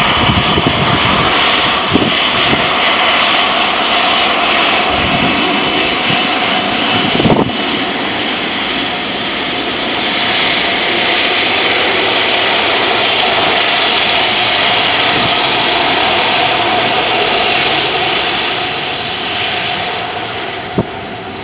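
Jet engines of an Air Malta Airbus A320-family airliner at takeoff power through the roll and climb-out: a loud steady roar with a steady whine, easing off over the last couple of seconds. Wind buffets the microphone in the first few seconds.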